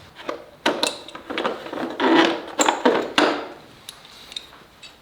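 A string of knocks, scrapes and rustling from parts and tools being handled, loudest in the first three seconds and then thinning to a few light ticks.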